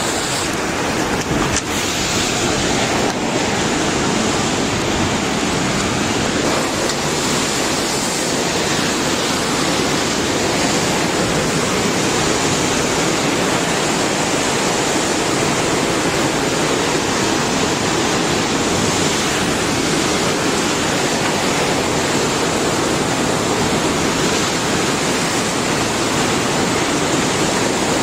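Loud, steady rushing of water with no breaks.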